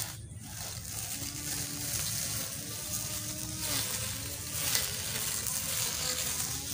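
Battery-powered electric grass cutter with a metal blade running and slicing through tall grass: a steady hiss with a faint, wavering motor hum beneath it.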